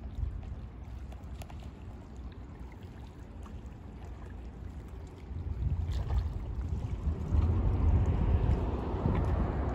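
Harbour water lapping and sloshing against the rocks at the foot of a seawall, with wind buffeting the microphone. The wind rumble grows much louder about halfway through.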